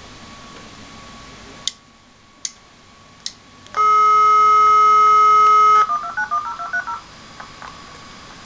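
Dial-up modem's speaker taking the phone line and dialling: three sharp clicks, then about two seconds of steady dial tone, then a quick run of touch-tone (DTMF) digit beeps as the number is dialled. The dial tone is the loudest part.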